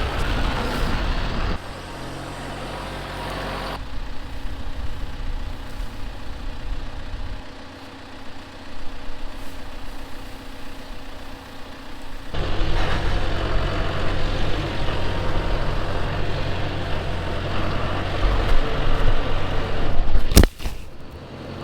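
A tractor engine running steadily, its level and pitch jumping abruptly several times as takes are cut together. There is a sharp knock near the end.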